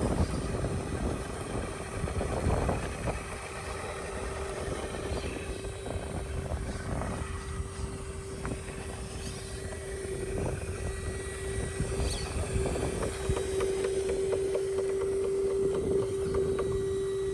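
RC rock crawler's electric motor and geared drivetrain whining at crawling speed, a steady whine that grows louder in the last few seconds, with scattered clicks and knocks of tyres and chassis on rock.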